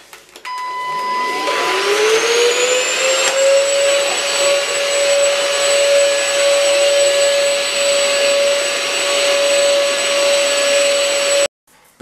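Cordless stick vacuum cleaner switched on, its motor whine rising in pitch over the first few seconds as it spins up, then running steadily while it cleans a tiled floor. It stops abruptly near the end.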